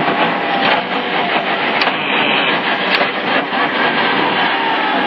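Toyota Corolla WRC's turbocharged four-cylinder engine and drivetrain running at low load, heard from inside the cabin as a dense, steady mechanical noise, with two sharp clicks about two and three seconds in.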